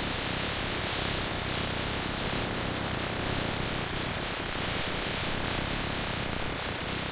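Steady, even hiss of noise with no distinct events, brightest in the treble.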